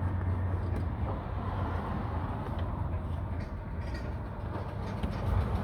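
Steady low vehicle rumble with an even background hiss, unchanging throughout and with no distinct knocks or clicks.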